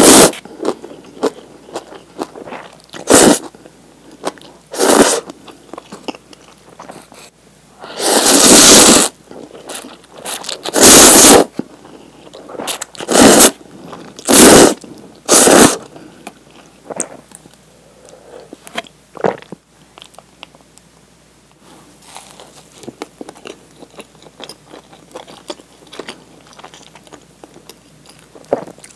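Close-up eating sounds: loud slurps of instant cup ramen noodles, about eight of them in the first half, the longest about eight seconds in. They give way to quieter chewing and small crunches.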